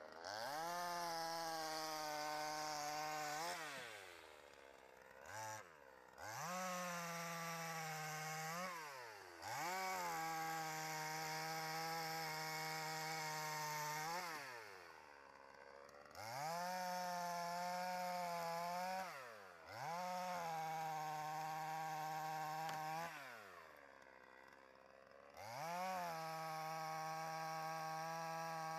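Patriot GS142 two-stroke chainsaw cutting through acacia logs: the engine revs up to full throttle and holds there through each cut, then drops back to idle between cuts, four times in a row. The pitch sags slightly as the chain bites into the wood.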